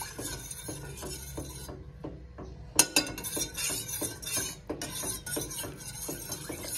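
Metal spoon stirring chicken broth with agar-agar powder in a steel pot, clinking against the pot's sides and bottom two or three times a second, with one sharper clink about three seconds in.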